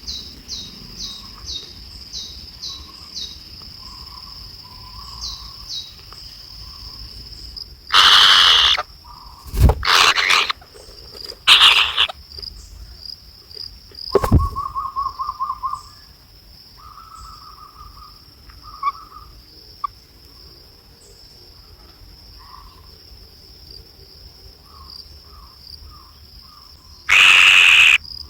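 Insects chirp steadily at a high pitch, pulsing about twice a second at first. A few short warbling calls sit lower down. Loud harsh bursts about a second long break in about eight seconds in and again near the end, with shorter ones and a couple of low thumps in between.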